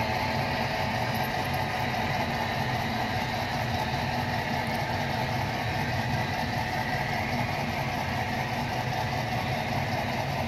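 Model railroad freight train running, with a steady, even engine-like hum that does not change as the cars pass.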